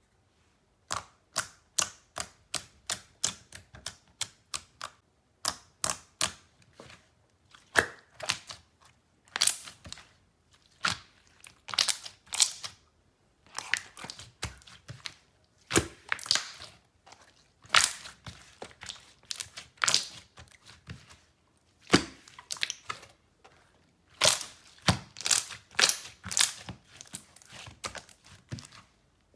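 A long series of sharp, crisp clicks and snaps at an uneven pace, some in quick runs and others spaced a second or more apart.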